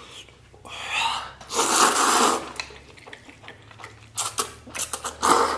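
A man slurping a big mouthful of sauced wheat noodles: a long slurp about two seconds in. Near the end come a run of short chewing and mouth clicks and a shorter slurp.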